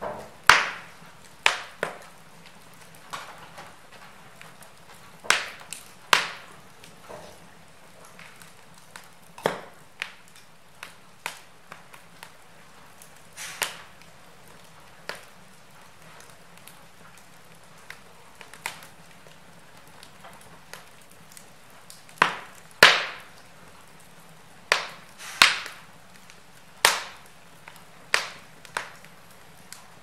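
Wood logs burning in a fireplace, crackling with irregular sharp pops and snaps over a faint steady background. The loudest pops come in clusters near the start and again from about twenty-two seconds on.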